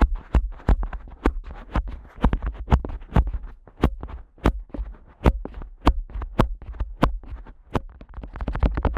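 Fingers flicking the ear flap (tragus) of a Neumann KU100 dummy-head microphone hard, giving sharp, close clicks with a deep thump, about two a second. Near the end it turns into denser, faster rubbing and tapping on the ear.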